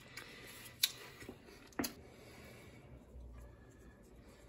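Two light sharp clicks about a second apart over faint scratchy rustling, as salt and pepper are added to broccoli in a glass bowl.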